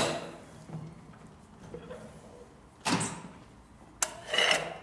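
Heavy steel clamp bars knocking and clunking as they are set down and shifted on a Magnabend magnetic sheet-metal folder. There is a sharp clunk at the start, another about three seconds in, and a knock followed by a short scraping slide near the end.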